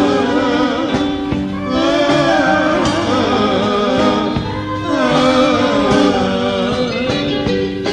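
A Greek laïko band plays an instrumental break: a wavering lead melody over bass and rhythm.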